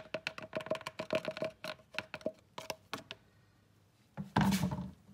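Plastic oil funnel being worked out of the engine's oil filler neck: a quick run of light clicks and knocks, then quiet, then one louder thump about four seconds in.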